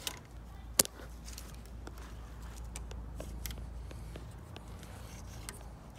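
A knife trimming the tails of plastic zip ties on a bamboo rod: a few sharp clicks, the loudest just under a second in, with faint rubbing and handling between them over a low steady rumble.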